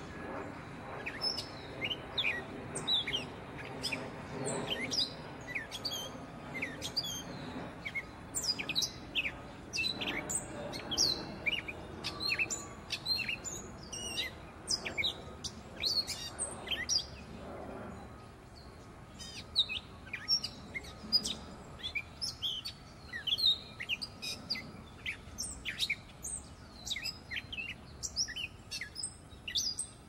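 Gray catbird singing: a long run of short, varied notes sweeping quickly up and down in pitch, several a second, with a short pause about eighteen seconds in.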